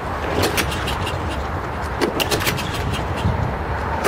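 Toro Recycler 22-inch mower's small 159cc engine sputtering and running roughly on fuel poured straight into the carburetor, struggling to keep going, with scattered sharp ticks. The owner guesses the carburetor is gummed up.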